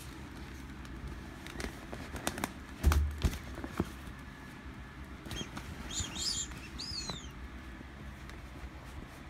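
Close handling of an inflatable vinyl toy: scattered knocks and rubbing, with a heavy thump about three seconds in. A few short high squeaks follow around six to seven seconds in.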